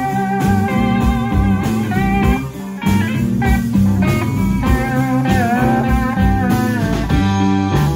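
Live rock band playing an instrumental passage: electric guitar holding long notes that bend and slide in pitch, over bass guitar and a steady drum beat.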